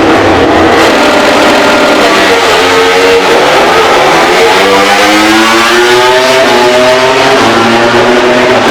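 MotoGP racing motorcycle engine under hard acceleration, loud and rising steadily in pitch for several seconds, then dropping sharply near the end.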